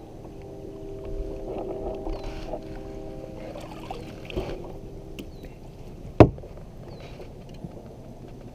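A single sharp knock on the kayak's hull about six seconds in, as a bass is netted and brought aboard. Before it, a faint steady hum of several tones runs through the first half, and a short high chirp repeats every second or two.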